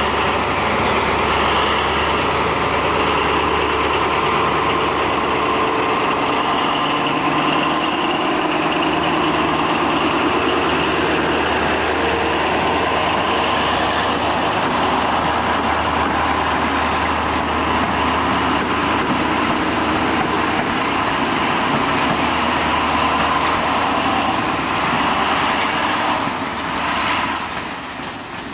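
OSE class A.351 diesel-electric locomotive's Pielstick diesel engine running hard as it pulls its passenger train away, a steady engine drone with a high whine that rises slightly partway through. The sound falls away near the end as the locomotive moves off.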